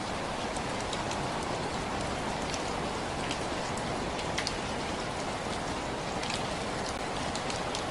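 Steady rain falling, a continuous even hiss with scattered sharp ticks of single drops striking close by.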